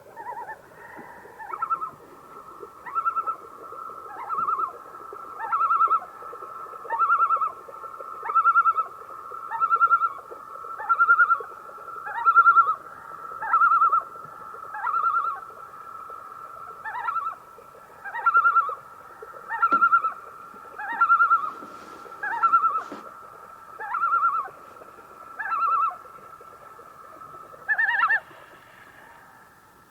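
Common loon calling: a long series of loud wavering notes, repeating about every second and a half over a steady held tone.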